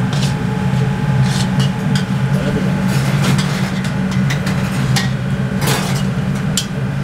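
Steel spatula scraping and clattering against a large steel kadai as onions and whole spices are stirred and dry-roasted, in quick irregular strokes. Under it runs a steady low rumble.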